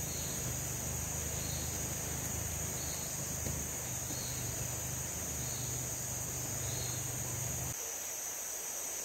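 A steady, high-pitched insect chorus drones without a break, with a faint soft chirp repeating about every second and a bit. A low hum underneath stops near the end.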